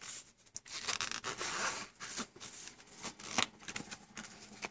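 Clear plastic wrapping crinkling and rustling as it is pulled off a portable Bluetooth speaker, with scraping handling noises and a sharper tap about three and a half seconds in.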